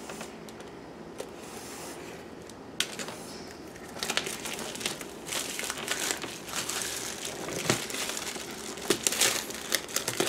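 Plastic shrink-wrap being torn and pulled off a board-game box, crinkling and crackling. After a quieter start with a single click, the crinkling runs dense from about four seconds in.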